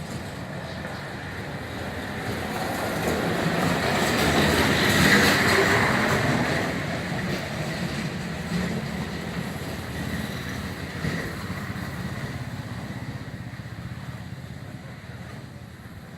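A vehicle passing by, its noise swelling to a peak about five seconds in and then slowly fading away.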